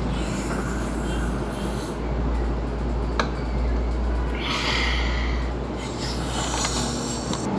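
A child making breathy slurping sips from a small plastic toy cup while pretending to drink, over a steady low hum and hiss of room noise. There is a single light click about three seconds in.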